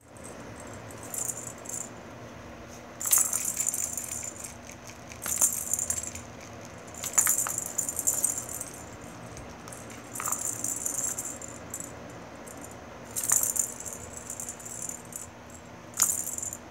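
A kitten batting at a circular plastic ball-track cat toy: the ball rattles around inside the track in short bursts, about six in all, each starting with a sharp click.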